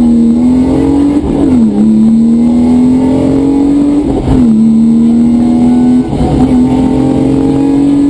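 Rally car's engine under hard acceleration, heard from inside the cabin: the pitch climbs through each gear and drops sharply at upshifts about a second and four seconds in, with another brief drop about six seconds in.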